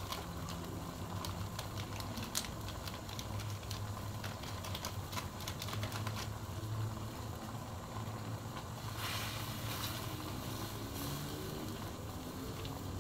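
Curry paste and vegetables stir-fried in a metal wok: a spatula scrapes and taps against the pan in irregular clicks over a steady low hum, with a brief louder rush of sizzling hiss about nine seconds in.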